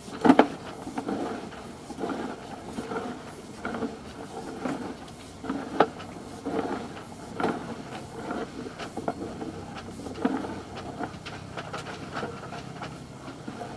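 Irregular knocks, clicks and rubbing of a sewer inspection camera's push cable being fed by hand down a sewer pipe.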